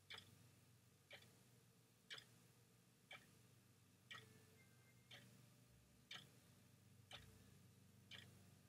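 Faint clock ticking steadily once a second, over a faint low hum.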